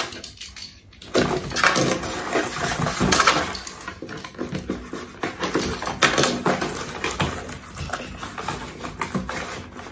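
Small cardboard parcel box being torn and pulled open by hand: cardboard flaps scraping and rustling, with scattered light knocks and crackles.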